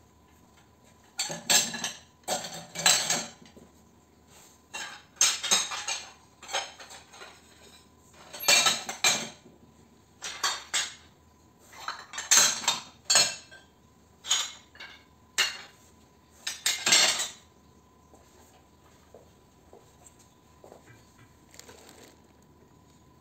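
Metal parts from dismantled motors being dropped into a wire-mesh metal basket, clattering and clinking in about a dozen separate bursts over the first three quarters. The clatter stops for the last few seconds.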